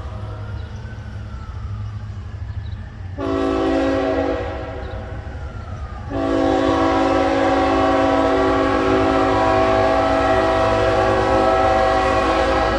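Diesel locomotive's multi-chime air horn sounding as a train approaches: a blast about three seconds in, then a long, loud blast from about six seconds on, over a low rumble.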